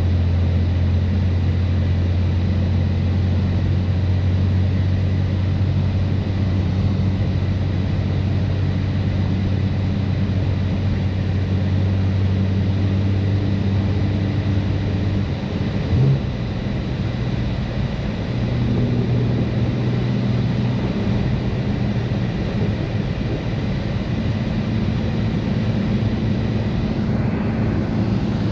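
BMW F80 M3's twin-turbo inline-six, fitted with catless downpipes and an always-open valved exhaust, droning steadily at highway cruise over the hiss of tyres running through slush. About halfway through there is a short sharp knock, after which the engine note settles at a different pitch.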